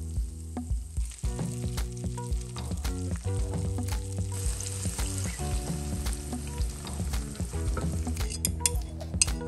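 Diced onions sizzling in hot oil in a frying pan as tomato slices are laid on top, with frequent small crackles and taps. Near the end, beaten egg is poured into the pan, with a few sharp clinks from the bowl and chopsticks.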